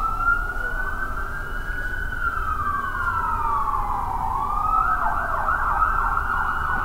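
Police car's electronic siren in a slow wail that rises and then falls over about four seconds, switching to a fast yelp about five seconds in.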